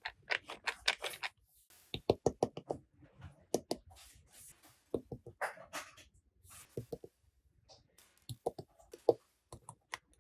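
Hard plastic toy playset pieces being handled: a run of sharp clicks and knocks in quick clusters, with a few short scraping rustles between.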